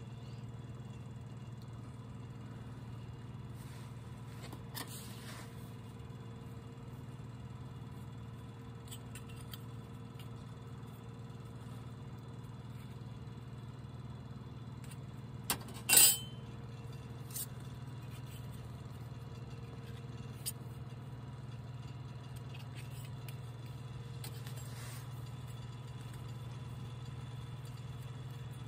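Small camping items being picked up and set down on a camp table: scattered light clicks and clinks, with one sharp, louder clink about sixteen seconds in, over a steady low hum.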